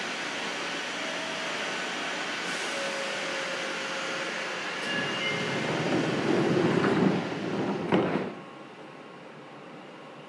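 Cabin sound aboard a Fukuoka City Subway 2000 series train car: a steady rush with a few faint short tones, then a louder rumble building from about five seconds in. It ends with a sharp knock near eight seconds in, after which everything drops suddenly to a much quieter hiss.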